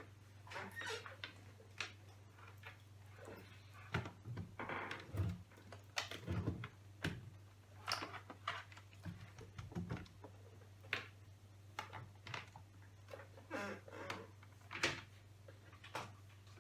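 Irregular clicks and taps of hands handling a laptop, with keys and buttons being pressed, over a steady low hum.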